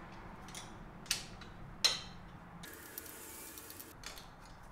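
Hand tools working on an outboard motor's shift linkage: two sharp metal clinks less than a second apart, then a brief scrape and a few small ticks.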